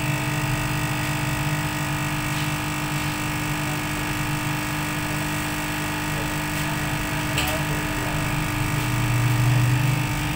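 Hot air rework station blowing a steady, humming stream of hot air from beneath a phone circuit board to melt the solder and seat a newly soldered charging jack. The low drone grows a little louder about nine seconds in.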